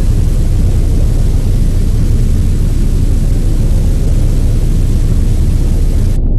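Loud, steady deep rumble with a hiss over it, an earthquake rumble. Near the end the higher hiss drops away and the low rumble continues.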